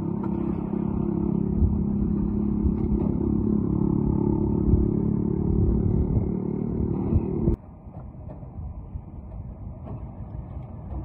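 Concrete mixer engine running steadily, then cutting off abruptly about two-thirds of the way through, leaving quieter site noise with a few light knocks.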